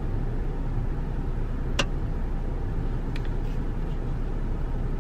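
Steady low hum inside a car's cabin, the engine idling with the air conditioning running. One sharp click a little under two seconds in, and a couple of faint ticks about a second later.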